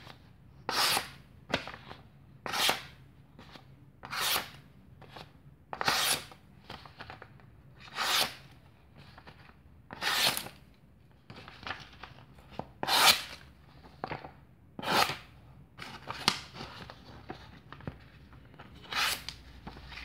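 Ganzo F758 knife's 440C steel blade slicing through a sheet of paper: about ten short, crisp slicing swishes, roughly one every two seconds. The clean cuts are a sharpness test, and the edge is very sharp.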